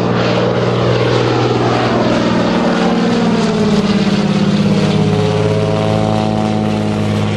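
De Havilland Beaver floatplane's Pratt & Whitney R-985 radial engine and propeller running as it flies low overhead. The pitch drops about two and a half seconds in as it passes, then holds steady and lower.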